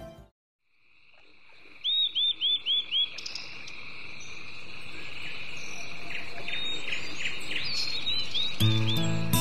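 A steady, high insect drone swelling gradually, with a bird's repeated arching chirps: five quick ones about two seconds in, more scattered ones later. Music comes back in near the end.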